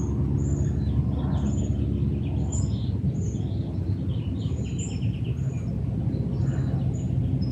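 Small birds chirping, short high chirps repeating every half second or so with a few quick trills, over a steady low hum.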